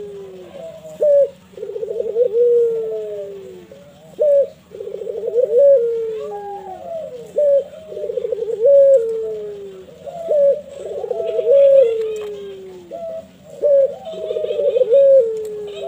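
Barbary dove (ringneck dove) cooing its manggung song over and over, about one phrase every second and a half. Each phrase is a rolling coo that falls in pitch, followed by a short sharp note.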